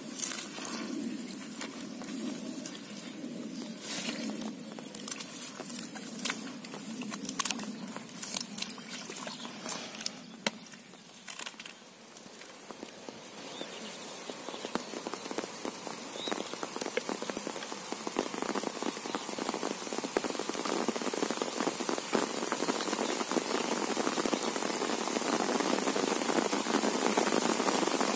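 Rain on an umbrella overhead: at first scattered sharp drops tapping on the canopy, then from about halfway the rain thickens into a dense, even downpour that grows steadily louder toward the end.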